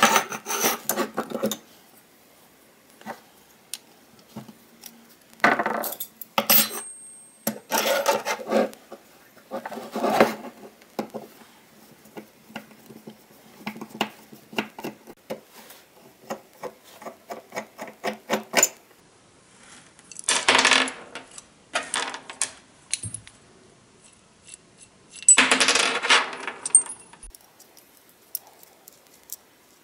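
Metal parts of an old No. 4 hand plane clinking, clicking and scraping as they are handled and taken apart: the lever cap, blade irons and frog being lifted off and set down, in irregular clusters of sharp metallic clinks.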